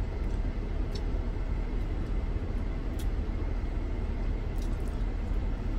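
Steady low rumble inside a parked minivan's cabin, typical of the engine idling with the ventilation running. A few faint ticks come through, about a second in and again near the middle.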